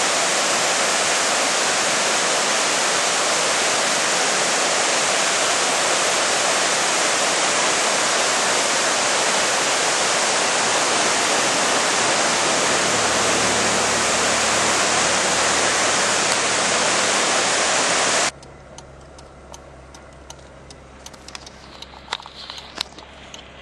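Water of a rocky cascade rushing down its stream bed, a loud, steady rush that cuts off abruptly about eighteen seconds in. A much quieter low hum with scattered clicks follows.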